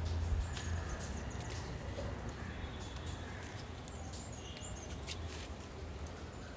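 Faint bird chirps, a few short high calls about half a second in and again later, over a steady low outdoor rumble, with a few small clicks and rustles.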